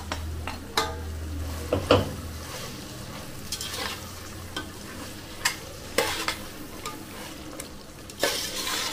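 Slotted metal ladle stirring thick mutton masala and green paste in a stainless-steel pressure cooker, scraping and knocking against the pot's side every few seconds over a soft sizzle of the food cooking.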